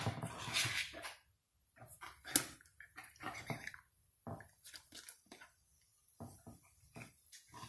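Metal fork clinking against a bowl of batter and battered Oreos being dropped into an electric deep fryer's hot oil: scattered short clicks and clatters, the sharpest about two and a half seconds in.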